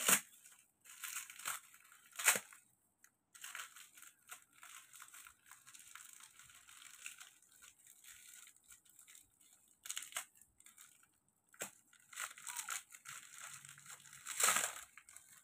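Plastic packaging crinkling and tearing as small wrapped packets are pulled open by hand, in irregular bursts, the loudest about two seconds in and near the end.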